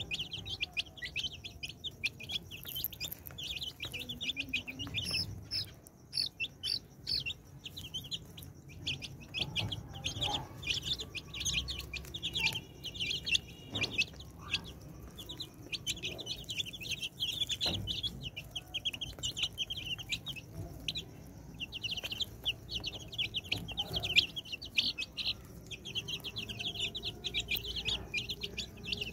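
Chicks peeping non-stop, many rapid high-pitched cheeps overlapping, with a hen clucking low now and then.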